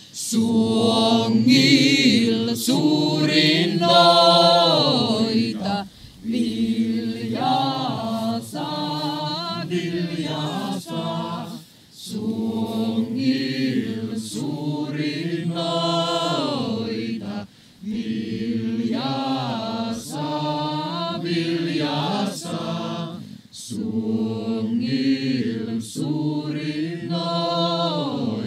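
A choir of women and men singing a chant-like song together, phrase after phrase, with brief pauses for breath every few seconds.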